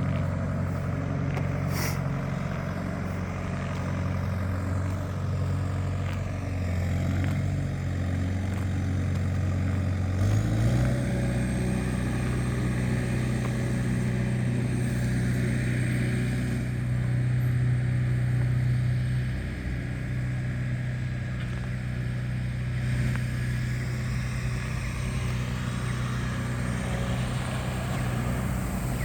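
A large engine running steadily with a low hum; about ten seconds in its pitch steps up slightly and then holds.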